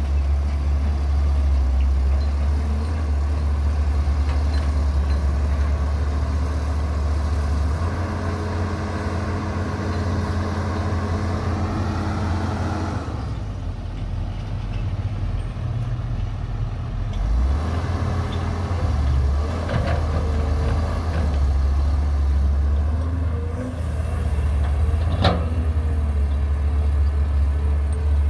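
Caterpillar 320C excavator's diesel engine running steadily under working load as it digs and swings dirt, a deep continuous drone whose tone shifts as the hydraulics work, with a dump truck's engine running alongside. A single sharp knock sounds about 25 seconds in.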